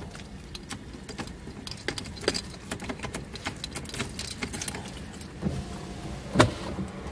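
Scattered crackles and clicks from a styrofoam takeout container and plastic fork being handled, with one sharper knock near the end, over a steady low hum inside a car.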